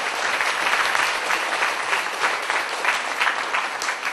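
An audience applauding in an auditorium: many hands clapping together, building in and then tailing off near the end.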